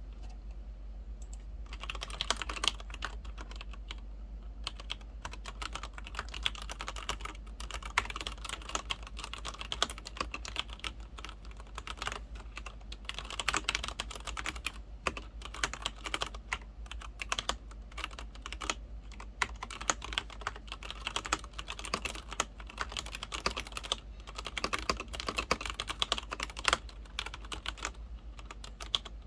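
Continuous fast typing on a Leopold FC900R-PD mechanical keyboard with Cherry MX Red linear switches: a dense, irregular run of key clacks, with a short pause about a second in.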